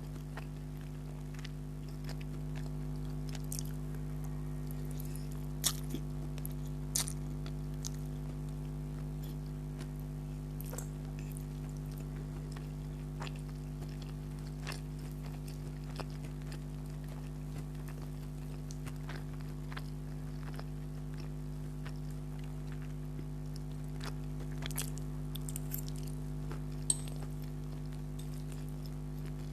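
A person chewing a mouthful of spicy chicken spaghetti, with scattered small clicks and a few sharper ones, over a steady low hum.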